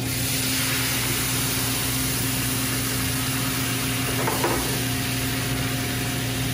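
Worcestershire sauce going into a hot pan of butter, olive oil, garlic and herbs, sizzling sharply as it hits and then sizzling steadily, with steam rising. A steady hum runs beneath, and there is a small clink about four seconds in.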